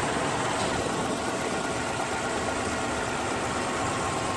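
Car engine idling steadily, a loud even mechanical noise with a faint whine.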